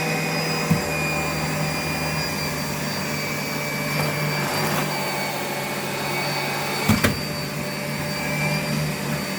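Vacuum cleaner running steadily with a high motor whine. Brief knocks a little under a second in and about seven seconds in, the second the loudest.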